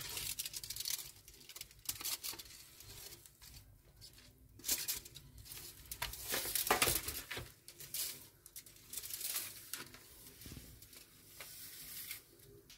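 Rustling and light handling noises in irregular bursts as paper sheets are laid on a serving tray and burgers are set down on them by hand.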